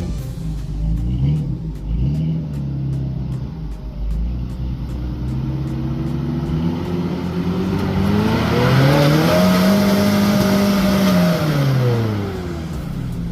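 A 4x4's engine working at low revs, then revving up about two-thirds of the way in, holding high for a couple of seconds and dropping back near the end.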